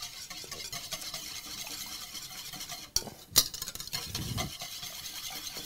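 Wire balloon whisk beating a thin egg-yolk, vinegar and oil dressing in a ceramic bowl: fast, steady wet swishing with the wires scraping the bowl. A little past halfway there is one sharp tap.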